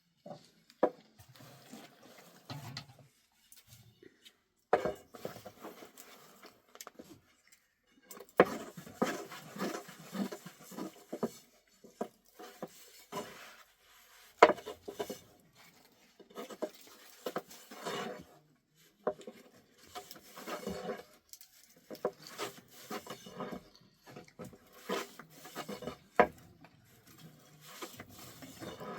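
Irregular clatter of dishes and utensils being handled, with scattered sharp knocks and scrapes between quieter handling noise.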